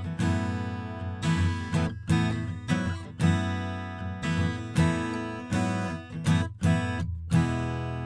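Steel-string acoustic guitar fingerpicked, chords and single notes plucked in a flowing pattern and left to ring. Close-miked with a condenser microphone about 20 cm from the 12th fret, with no compression on it.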